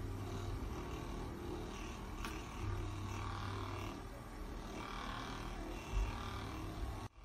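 Handheld percussion massage gun running with a steady motorised buzz, pressed against the neck and shoulder; its hum swells and eases a few times as it is moved.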